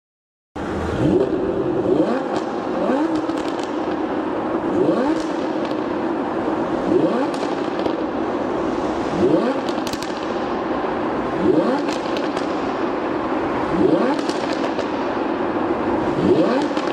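Lamborghini Huracán's V10 engine revved in repeated quick blips, about one a second, with sharp exhaust crackles between them. It starts abruptly about half a second in.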